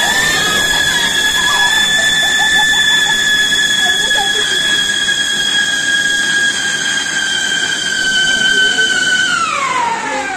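Ground spark-fountain firework going off with a loud, steady high whistle over a hissing spray of sparks. Near the end the whistle slides down in pitch.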